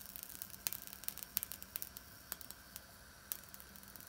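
Chicken adobo bubbling in a covered stainless steel pan over a gas flame: faint, irregular pops and crackles over a low steady hiss.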